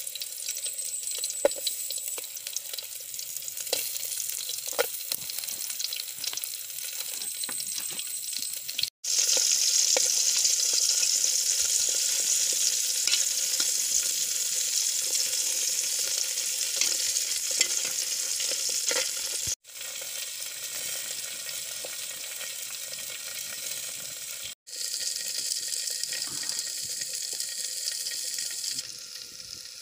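Oil sizzling in an aluminium pot over a wood fire as pieces of food fry, with a spoon stirring and clicking against the pot now and then. The sizzle drops out briefly three times and is loudest for about ten seconds in the middle.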